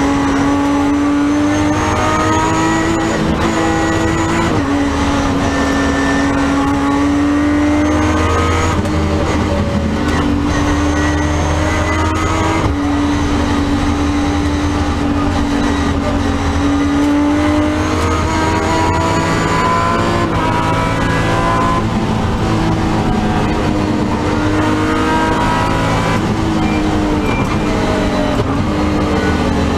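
A rally car's engine driven hard, heard from inside the cockpit. The revs climb and then drop sharply at each gear change, several times over, with steady tyre and road noise beneath.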